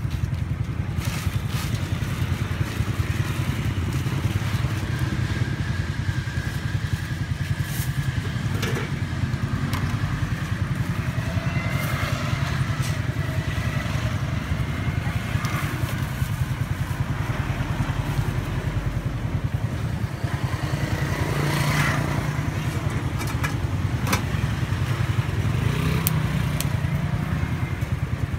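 Steady low rumble of motorbike engines running, with a few light clicks and clinks of a metal spoon against a pot.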